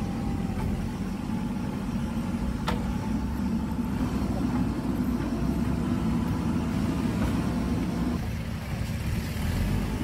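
JCB backhoe loader's diesel engine running steadily under load while the backhoe arm digs, with a single sharp knock about two and a half seconds in. The engine note drops a little about eight seconds in.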